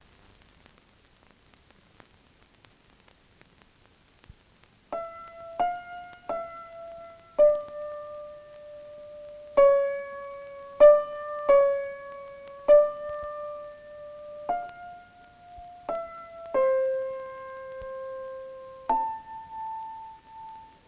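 About five seconds of near silence, then a slow melody played one note at a time on a keyboard instrument, piano-like. Each note starts sharply and rings on, and the last note is held to the end.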